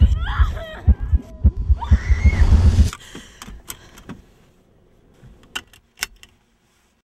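A girl sobbing and wailing in distress over heavy low thuds for about three seconds, then it cuts away to quiet. Near the end, a couple of sharp clicks as a car seatbelt buckle is latched.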